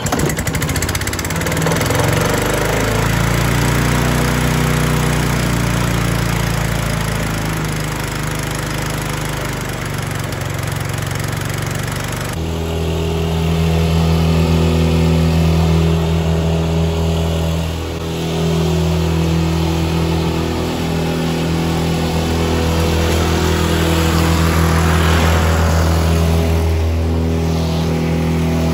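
Talon four-stroke walk-behind lawnmower engine running, its pitch wavering for the first few seconds before it settles. About twelve seconds in, the sound changes abruptly to the mower running steadily on grass.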